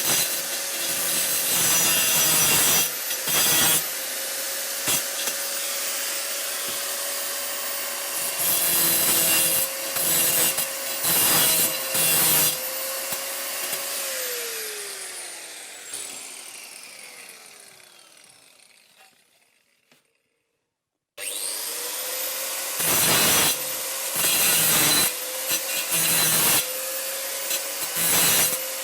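Angle grinder with a stone-cutting disc grinding off protruding screw tips: a steady high motor whine broken by repeated louder bursts as the disc bites into the metal. About halfway through the motor is switched off and its whine falls away to silence; after a short gap it is running and grinding again.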